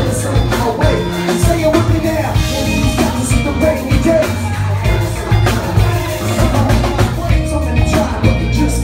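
Live band music with a drum kit and electric guitar or bass, loud and continuous, with a rapper's voice over a microphone.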